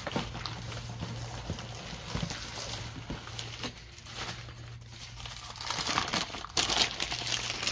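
Crumpled newspaper packing crinkling and rustling as it is pulled out of a cardboard box and unwrapped by hand, getting louder near the end.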